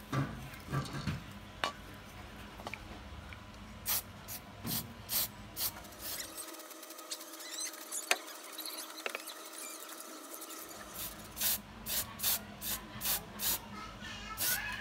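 Aerosol spray paint can spraying black acrylic paint in quick short bursts, one run about four seconds in and another from about eleven seconds. A few short squeaks sound near the start.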